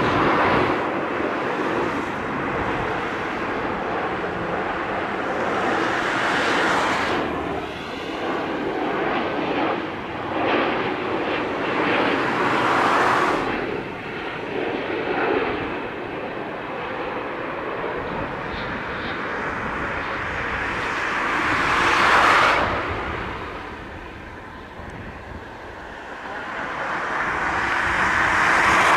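Rolls-Royce Trent 7000 turbofans of an Airbus A330-800 airliner on final approach, a steady jet roar that swells and fades several times. It is loudest about three-quarters of the way through and again at the end.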